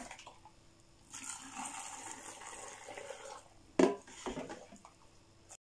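Hot pickling brine pouring into a glass jar packed with cucumbers, a steady splashing pour lasting about two seconds. It is followed by one sharp knock about four seconds in, then the sound cuts off suddenly.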